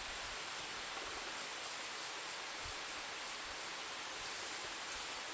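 Steady, even hiss with no distinct clicks or other events standing out from it.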